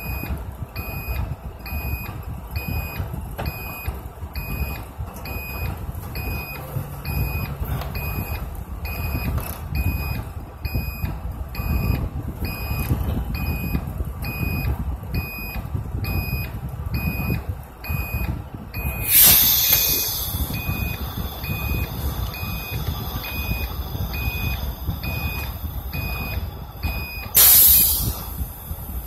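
A vehicle's reversing beeper sounding steadily, about two beeps a second, over the low rumble of a large idling engine. Two short, loud hisses of compressed air, typical of air brakes, come about two-thirds in and near the end, where the beeping stops.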